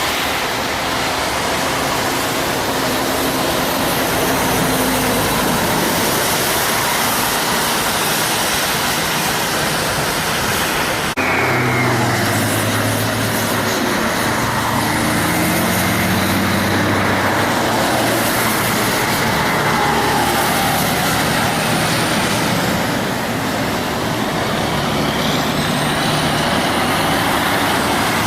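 Heavy diesel trucks driving past in highway traffic, engines running with steady tyre and road noise. The sound changes abruptly about eleven seconds in, as at a cut to another passing truck.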